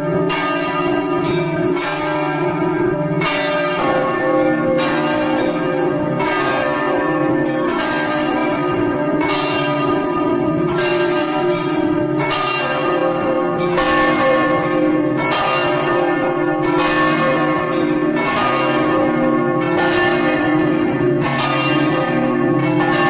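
Church bells pealing, struck one after another in quick succession, about two strokes a second, each stroke ringing on into the next.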